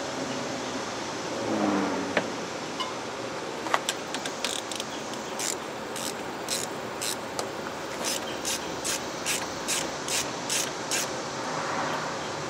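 Hand ratchet worked in short, even strokes, about two a second, driving in the condenser mounting bolts. Before it, in the first few seconds, a scrape and two sharp clicks.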